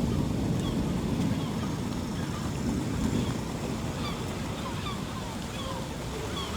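Steady low rush of heavy rain and wind, with many short, high, falling chirps repeating throughout.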